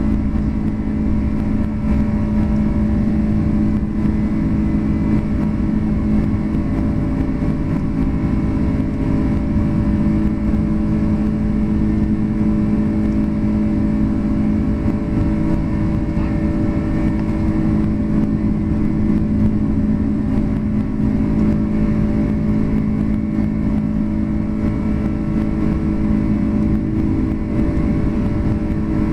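Cabin noise of a Boeing 747-400 in its climb after takeoff, heard at a window seat by the wing. The General Electric CF6 turbofans at climb power make a steady rush of air with a constant hum of several held tones over it.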